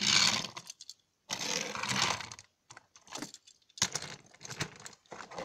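Hard plastic toy pieces of Tomy Trackmaster push-along Sandy and Carly clicking, rattling and scraping as they are handled. Sandy is being set back down on the plastic track and unhooked from Carly. There are two scraping, rattling bursts in the first half, then a handful of sharp clicks.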